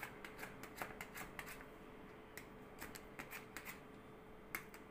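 Faint, irregular crackling and rustling clicks of a waxing strip being rubbed down by hand onto a waxed forearm.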